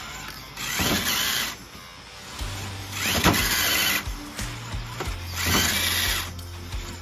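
Axial SCX10 III RC rock crawler's electric motor and gears whining in three bursts, about a second each, rising and falling in pitch as it tries to climb a rock and the rear tyres lose grip. Background music with a steady bass line plays underneath.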